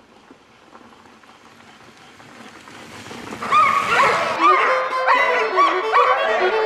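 Sled dogs yelping and barking, a rapid, loud string of rising-and-falling yips starting about three and a half seconds in, after a few seconds of low outdoor noise.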